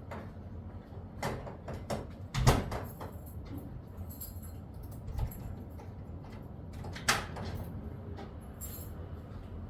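Several separate short knocks and clacks, the loudest about two and a half seconds in, over a low steady hum.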